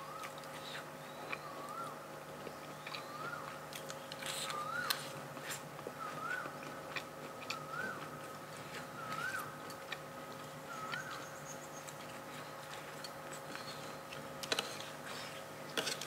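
Close-up chewing and crunching of food, with scattered crisp bites. A bird gives a short rising-then-falling call about every second and a half.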